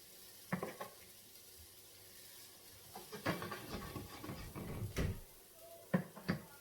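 Kitchenware handled while frying pancakes: a knock about half a second in, a run of knocks and scraping from about three to five seconds in, and two sharp knocks near the end.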